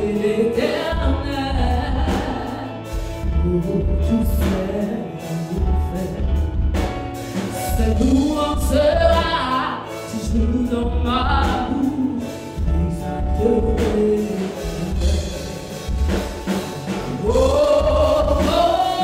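A woman singing a gospel worship song live, her sung lines sliding and held, over band accompaniment with a steady low beat.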